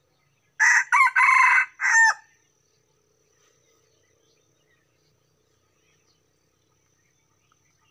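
F1 wild junglefowl hybrid rooster crowing once: a single loud, short crow lasting about a second and a half, starting about half a second in and breaking off abruptly.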